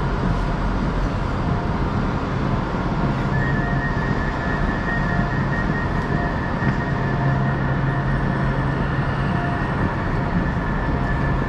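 Steady hum of an Avanti West Coast Class 390 Pendolino electric train standing at the platform, its onboard equipment running under the station roof, with a steady high-pitched whine joining about three seconds in.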